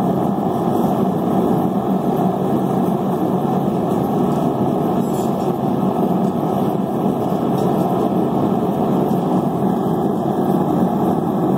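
Blacksmith's forge running with a loud, steady rushing noise while a piece of steel heats in it.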